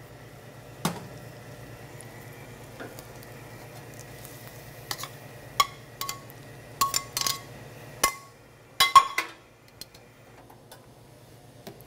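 A stainless steel sauté pan and utensils clinking and scraping against a ceramic plate as pasta is slid out onto it. There is a string of sharp clinks, several with a short ringing tone, between about five and nine seconds in, over a steady low hum.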